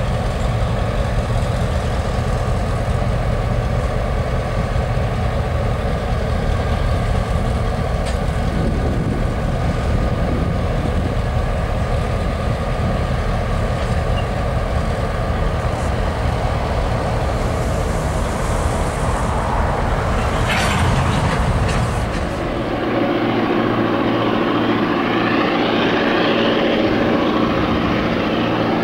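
Vintage Victorian Railways diesel-electric locomotives running as they move slowly past: a steady, heavy engine drone with a short hiss about twenty seconds in. A little after that it gives way to a different, higher-pitched and more distant engine drone.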